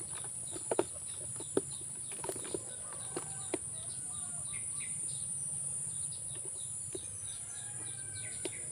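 A steady, high-pitched drone of insects with short bird chirps over it. A few sharp clicks and knocks come in the first three seconds or so.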